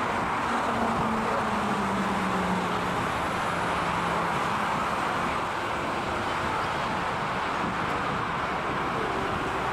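Boeing 747-8's four GEnx-2B turbofan engines making a steady jet roar as the airliner touches down, with a faint hum that drops in pitch over the first few seconds.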